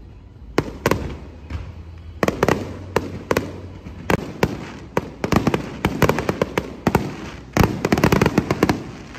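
Fireworks finale: a string of sharp bangs and crackling bursts, spaced out at first and then coming thick and fast from about halfway through.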